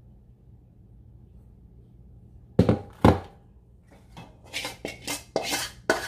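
Kitchen cookware being handled and set down: two sharp knocks close together, then a run of lighter clatters, over a faint low hum.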